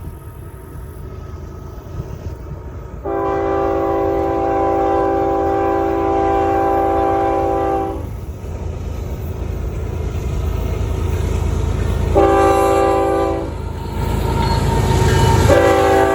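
Canadian Pacific locomotive air horn sounding a chord: one long blast of about five seconds, then a short blast, then another beginning near the end. Under it runs the low rumble of the train, growing louder.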